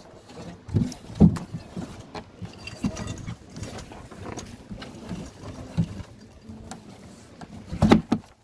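Irregular knocks and clatter as red fish and crushed ice are handled in a boat's fish hold and against the hull, with a loud thump about a second in and louder knocks near the end.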